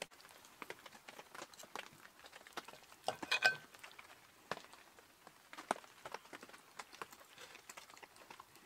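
Knife and fork tapping and scraping on a ceramic plate while cutting food, with a brief ringing clink of metal on china about three and a half seconds in, among scattered light ticks.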